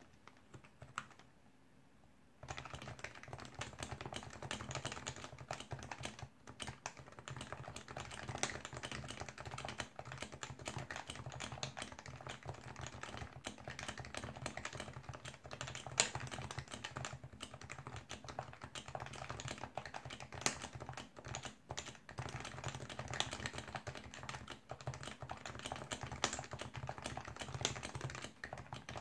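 Fast, continuous typing on an HHKB Pro 1 keyboard with stock Topre electrostatic capacitive switches: a dense, unbroken run of keystrokes. It starts about two and a half seconds in, after one or two single key taps.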